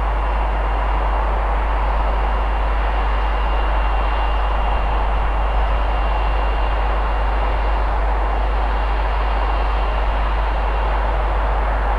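Steady, even rushing noise with a deep low rumble and a faint high whine running through it; no distinct events.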